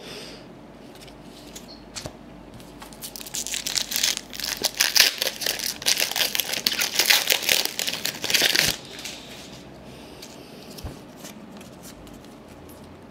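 A trading-card pack wrapper being torn open and crinkled, a dense crackling with many sharp snaps, starting about three seconds in and lasting about five seconds. Quieter card handling before and after.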